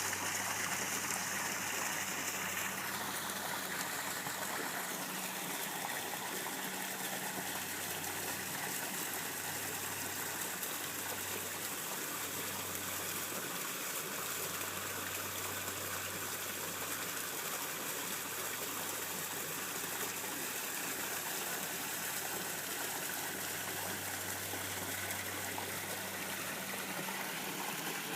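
Garden waterfall splashing and running steadily, with a low steady hum underneath.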